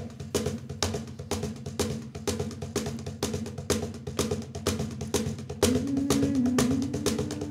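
Background music: a percussion beat of sharp knocks about three a second over low bass notes, with a held note coming in about two-thirds of the way through.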